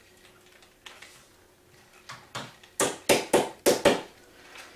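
Claw hammer tapping a furniture glide into the bottom corner of a particleboard dresser frame: a quick run of about seven sharp knocks starting about two seconds in, the later ones loudest.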